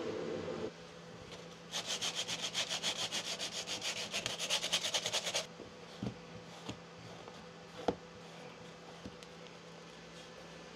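A cloth rubbed briskly back and forth over a freshly laser-engraved cherry board, wiping off the engraving residue, for about four seconds in quick even strokes. A few light knocks follow as the board is handled.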